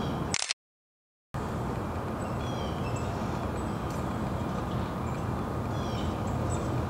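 Outdoor ambience: a steady low rumble with small birds chirping high and briefly in the background. A short hiss comes just after the start, then the sound cuts out completely for almost a second.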